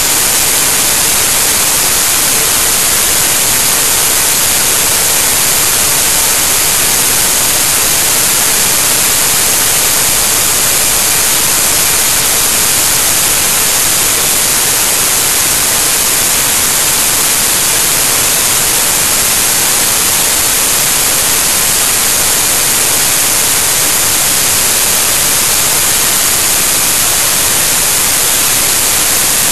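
Loud, steady static hiss, even across all pitches and strongest at the top, with no tone or rhythm in it: garbled audio from corrupted digital data, heard alongside a picture broken into random blocks.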